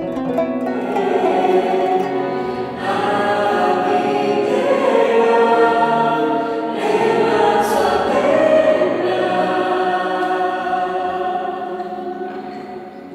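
A choir singing slow, held chords that change every second or two, fading away near the end.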